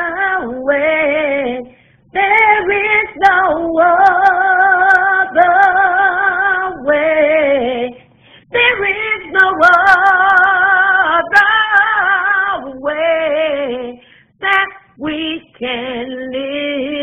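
A woman singing a slow gospel song in long held notes with vibrato, with short pauses between phrases.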